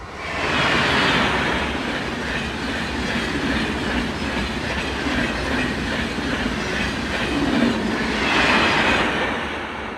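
A train passing close by on rails. The noise swells sharply in the first second, holds loud for about eight seconds, rises once more near the end, then falls away.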